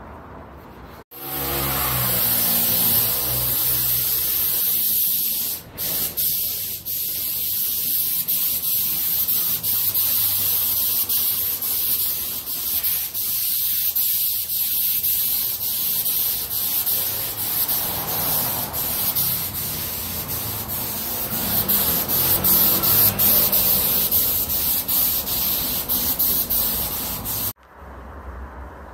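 Gravity-feed air spray gun hissing steadily as UV clear coat is sprayed onto a sanded headlight lens. The hiss starts about a second in, breaks off briefly about six seconds in, and cuts off suddenly just before the end.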